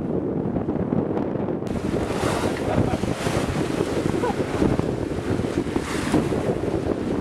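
Wind buffeting the microphone on a sailing yacht under way, with the rush of choppy water along the hull. The hiss turns abruptly brighter about a second and a half in, then swells in a few gusts.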